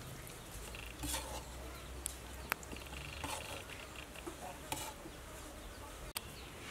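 Quiet background with a few faint clicks and taps as pieces of cooked pork intestine are set onto a wooden tray, and a brief faint high trill about three seconds in.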